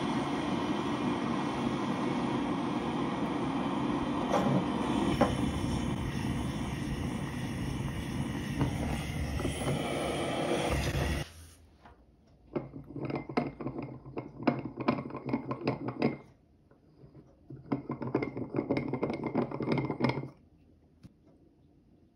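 Handheld butane torch flame running steadily as it lights oak shavings, shut off suddenly about eleven seconds in. Then two spells of rapid scraping, the first about three and a half seconds long, the second about two and a half.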